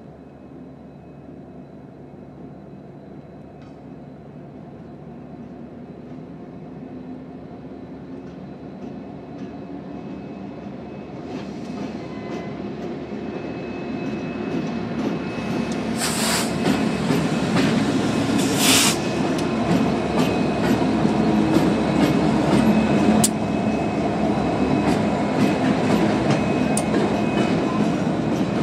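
Union Pacific EMD SD70M diesel locomotive approaching at low speed and rolling past close by, its engine rumble growing steadily louder until it is alongside. About halfway through there are two short loud hisses, followed by a run of clicks and light squeaks from the wheels as the locomotive and a flatcar roll past.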